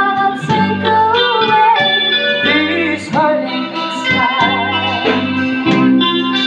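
Live band music: electric guitars and a drum kit, with a woman singing a sustained, wavering melody.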